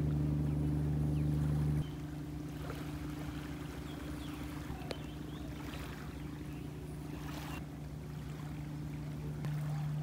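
A steady low engine drone holding one constant pitch. It drops abruptly in level about two seconds in and comes back up near the end.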